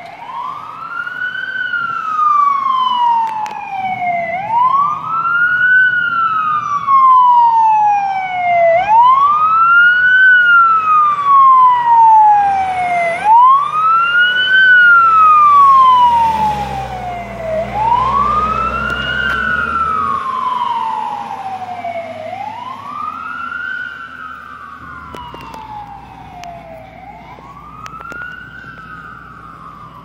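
Fire engine's siren on a slow wail, rising quickly and falling slowly about every four and a half seconds. It grows louder as the truck approaches, peaks as it passes about halfway through with its engine rumbling low, then fades as it moves away.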